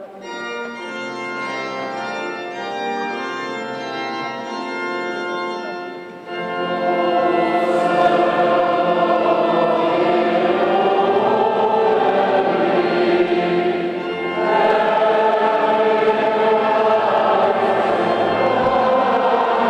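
Church pipe organ playing a hymn introduction in held chords, then, about six seconds in, many voices join to sing the closing hymn with the organ, growing fuller again near the end.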